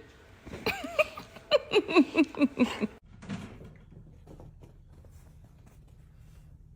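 A pet's quick run of about ten short, high calls, each falling in pitch, then a few faint taps.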